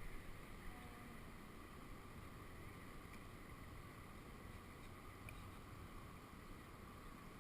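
Faint, steady background noise on open water, close to silence, with no distinct splash, paddle stroke or other event standing out.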